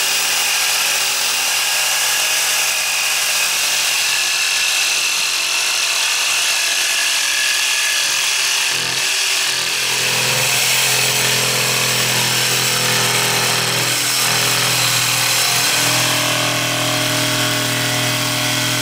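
Electric jigsaw with a wood-cutting blade sawing through carbon fibre sheet, a steady loud rasping cut. A lower hum from the saw joins about halfway through.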